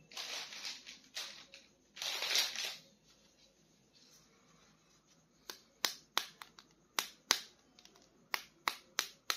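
Handling of toy action-figure packaging: two short bursts of rustling, then a run of sharp clicks about three a second.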